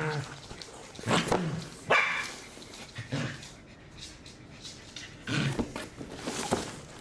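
Pembroke Welsh corgi barking at a cardboard box that scares it: several short, loud barks spaced a second or so apart.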